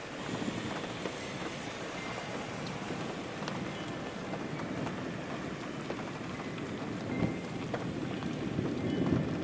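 Steady rain falling, with a low thunder rumble building in near the end.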